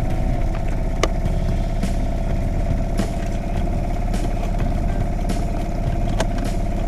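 An engine running steadily, like an idle, with scattered clicks and rattles.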